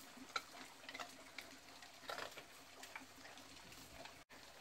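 Near quiet, with a few faint, scattered clicks and ticks.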